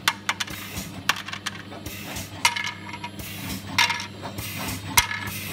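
Small metal parts clinking as a Fanuc M-1iA delta robot picks them off a conveyor and drops them into a sorting bin. Sharp clinks with a short ring come every second or so, over a steady low hum.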